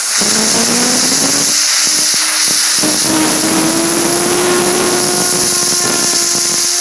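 A compressed-air blast hisses loudly against a fidget spinner, whose whine climbs in pitch over the first few seconds as it speeds up, then holds steady at top speed.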